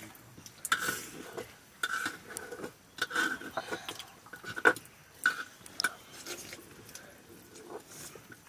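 Metal plates clinking and scraping in short, irregular taps as rice is eaten from them by hand, some taps leaving a brief ring.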